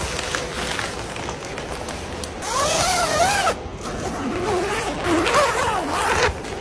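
Fabric car cover rustling as it is pulled, with a zipper being unzipped in rasps that rise and fall in pitch, loudest about halfway through and again near the end.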